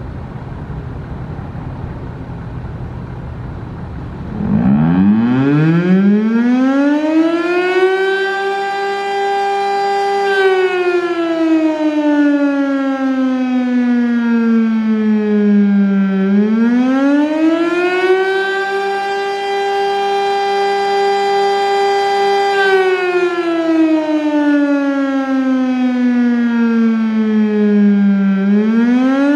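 Federal Signal STL-10A three-phase, single-tone siren sounding an attack signal: about four seconds in it winds up to a steady high tone, then falls slowly and rises again in a repeating up-and-down wail. Before it starts there is a low rumble.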